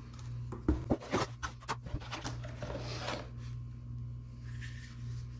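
Handling noise as a crossbow's stock is lifted out of its cardboard box: cardboard rustling and scraping with a string of sharp knocks and clicks for about the first three seconds. After that only a faint steady hum remains.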